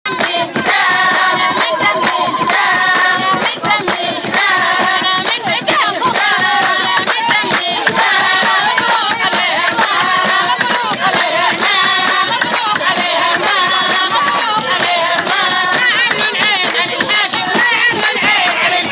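Women singing together over a fast, steady rhythm of sharp hand-clap-like beats. Loud and continuous, with no break.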